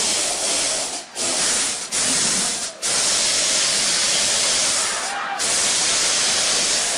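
Loud steady hiss of pressurised gas jetting from fire extinguishers used as thrusters on a spinning cart. The hiss breaks off briefly a few times and restarts each time.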